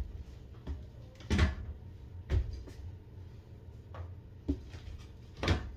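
Bottles and soap dispensers being picked up and set down on a bathroom sink counter: about five hard clunks, the loudest a little over a second in and near the end.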